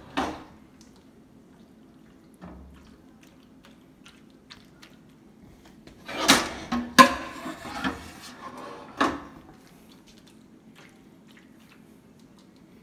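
A cup scraping and knocking against a stainless steel stockpot as cooked pasta mix is scooped out, with a cluster of loud clatters about six to seven seconds in and softer ones near eight and nine seconds. A faint steady hum runs underneath.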